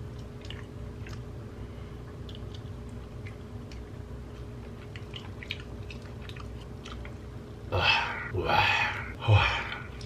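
A man slowly chewing a bite of butter-grilled abalone, with faint wet mouth clicks. Near the end come three loud breathy sighs of relish.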